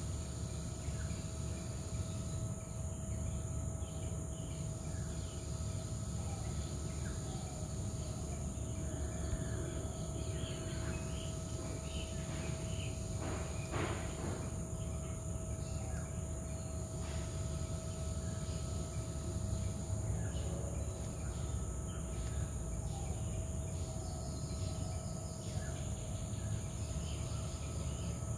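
Outdoor ambience dominated by a steady high-pitched drone of insects, over a low rumbling noise and a faint steady hum. A few short chirps are scattered through it, and a brief noise stands out about halfway through.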